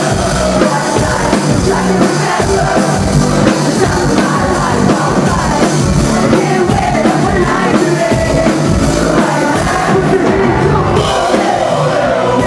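Loud live rock music: a male vocalist singing and shouting into a microphone over a band and a steady beat.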